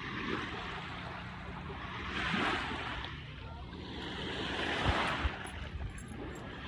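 Small waves washing up on the shore, each swelling and fading every two to three seconds, over a low rumble. Two brief thumps come about five seconds in.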